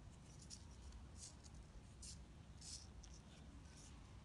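Faint, short scratchy rustles, several in a few seconds, of fingers sliding along and pulling clear nylon monofilament fishing line.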